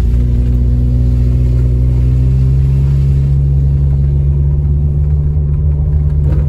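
Car engine running under load inside the cabin, a steady drone whose pitch rises slowly as the car pulls up a slope, over low road rumble.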